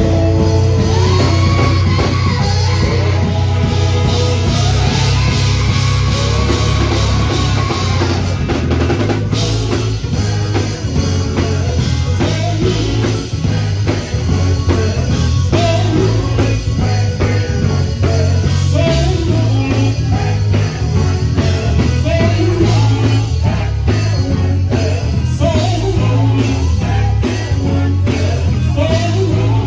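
Live gospel music: a man sings lead into a handheld microphone over an amplified band with electric guitar and a drum kit keeping a steady beat.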